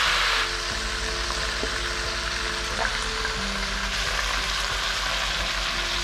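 Raw chicken pieces sizzling in hot oil in a pan, turned with a wooden spatula as they start to fry. The sizzle eases slightly about half a second in, then runs on steadily.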